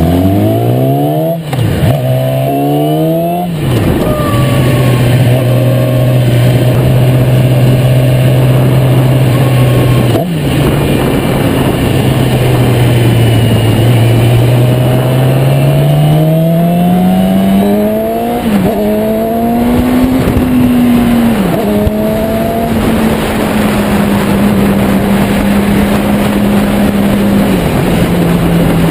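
Yamaha YZF-R6 inline-four engine under way: it pulls up through two quick upshifts at the start, cruises steadily, then accelerates again with more upshifts about two-thirds through before settling into a steady higher cruise. Heavy wind noise buffets the tank-mounted camera's microphone the whole time.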